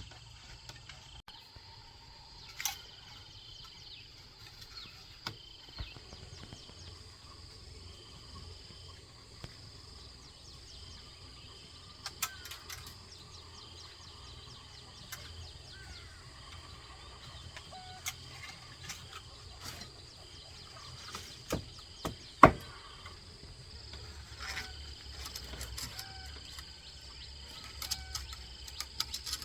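Insects chirring steadily in the forest, in repeated pulses, with a few sharp knocks scattered through; the loudest knocks come about 21 and 22 seconds in.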